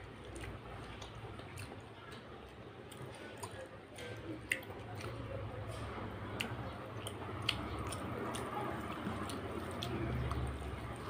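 Close-up eating sounds: wet chewing and lip smacks as pieces of mutton fat curry are eaten by hand, with scattered sharp wet clicks over a low steady hum. About ten seconds in, fingers squish and mix rice into the gravy.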